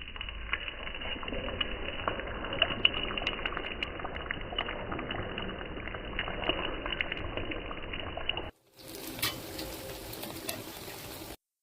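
Potatoes frying in hot oil in a pan: a steady sizzle full of small crackles. It breaks off about eight and a half seconds in, and a different, softer hiss follows.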